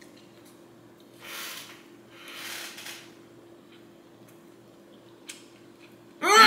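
A man tasting food with his mouth closed: two soft breaths out through the nose, a light tick, then near the end a loud hummed 'mmm' that rises and falls in pitch, a sound of enjoyment at the first bite of spicy chicken fried rice.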